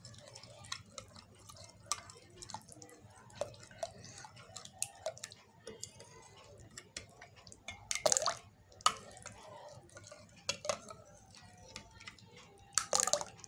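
A metal spoon stirring spiced yogurt in a glass bowl, clicking and scraping against the glass in an uneven rhythm, with a few louder clinks about eight seconds in and near the end.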